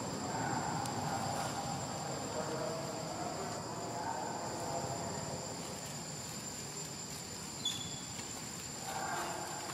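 Insects droning steadily at a high pitch, with one short click near the end.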